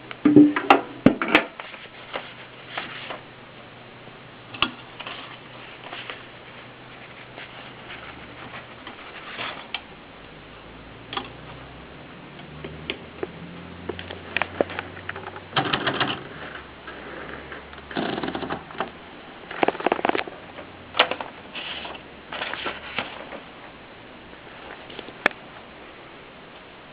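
Adler Tippa portable manual typewriter clacking irregularly: single key strikes spaced out, with short clusters of rapid clicks from its mechanism.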